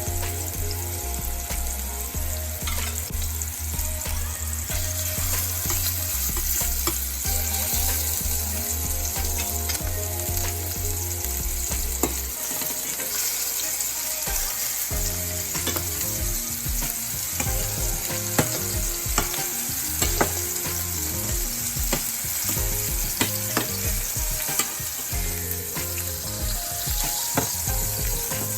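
Stuffed ground-meat patties sizzling steadily as they fry in a skillet, with scattered small pops and clicks of spattering fat.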